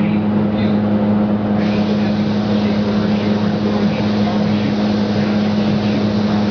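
Paint spray booth at work: a steady low hum from the booth's fans, under the hiss of compressed air from a spray gun applying paint.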